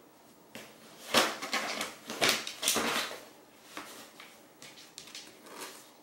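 Fabric cat play tunnel rustling and crinkling in a series of loud bursts for about two seconds as the cat inside scrabbles at a wand toy, followed by a few lighter taps and scuffs as the other cat paws the toy on the floor.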